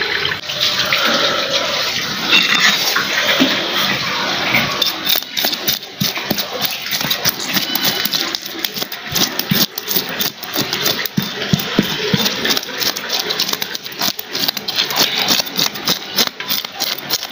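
Water splashing as live rohu and catla fish are handled in a tub of water. From about five seconds in, a cleaver scrapes the scales off a fish in quick, repeated strokes.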